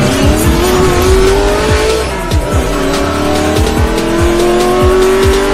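Intro music with a steady drum beat, mixed with a race-car engine sound effect revving up. The engine pitch climbs, drops about two and a half seconds in like a gear change, then climbs again.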